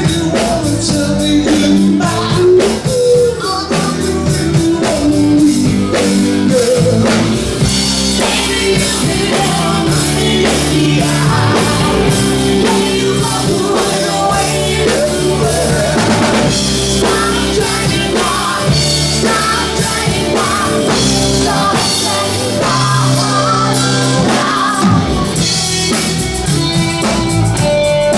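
Classic rock band playing live: a drum kit and guitars, with singing.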